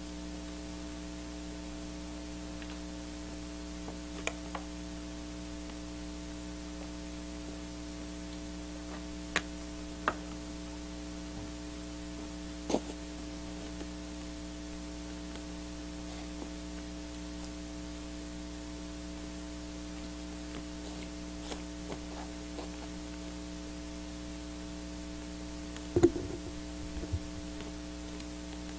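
Steady electrical mains hum with faint static, broken by a few isolated soft knocks and clicks. The loudest is a short cluster of knocks about 26 seconds in.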